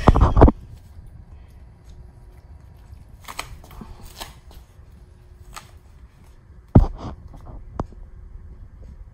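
Scattered rustling and scraping noises with a few knocks as cats paw at homemade fabric catnip toys on a tile floor; the loudest are a burst at the very start and a sharp knock about seven seconds in.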